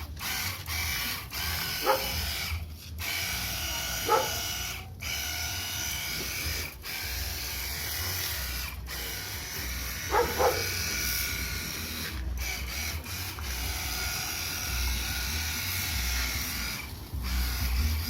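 Battery-powered portable pressure washer running: a steady motor whine with water spray, broken by several brief dropouts and a few short chirps.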